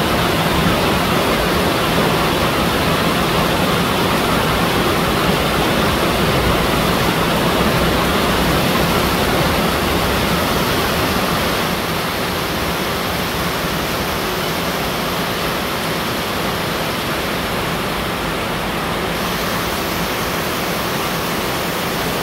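Heavy rain pouring steadily on trees and the ground, a dense even hiss that gets a little softer about halfway through.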